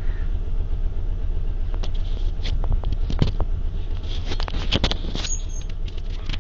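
Steady low background hum, with a scatter of sharp clicks and taps between about two and five seconds in.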